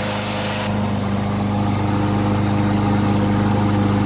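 Toro walk-behind lawn mower's single-cylinder engine running steadily just after being pull-started, freshly serviced with its carburetor cleaned.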